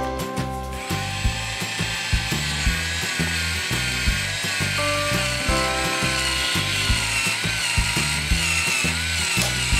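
Fisher-Price Drillin' Action toy drill running in reverse from about a second in, a steady whirr as it backs a plastic bolt out of the toy workbench, over background music with a steady beat.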